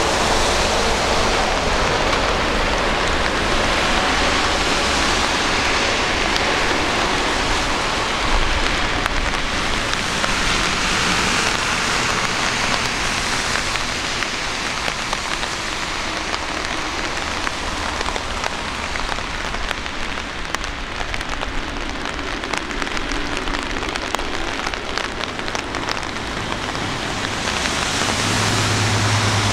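Boeing 747 freighter's four jet engines at takeoff thrust on a rain-soaked runway, a steady rushing noise that eases off about halfway through as the aircraft goes away into the mist. Rain falls throughout, with fine drop clicks near the microphone in the second half.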